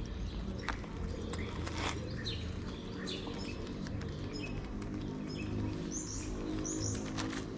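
Cats chewing and licking wet cat food from a plastic tub, a run of scattered small clicks and smacks. A few short bird chirps sound in the background, over a steady low hum.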